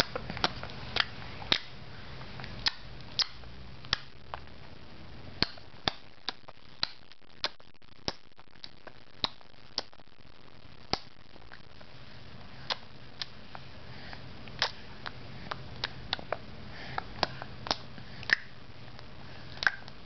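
A series of short, sharp clicks at an irregular pace, roughly one to three a second.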